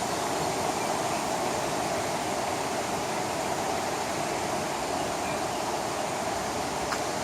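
Mountain valley stream flowing, a steady unbroken rush of water.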